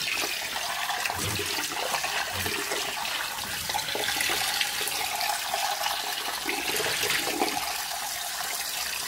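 Cold water from a kitchen tap running steadily into a saucepan of freshly boiled eggs in a stainless-steel sink, splashing as it cools them down.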